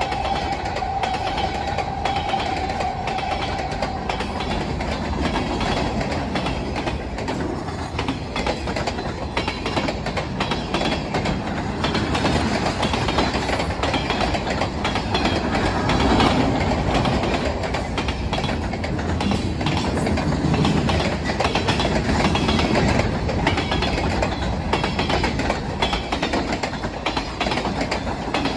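Freight cars of a Canadian Pacific mixed freight train rolling past at speed, a steady rumble with wheels clacking over the rail joints. A steady high tone sounds over it for the first few seconds and fades out.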